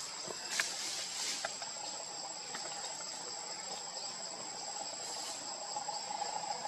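Steady, high-pitched forest insect chorus with a constant shrill whine, joined by a lower buzzing that grows louder near the end, with a few faint ticks in the first second or so.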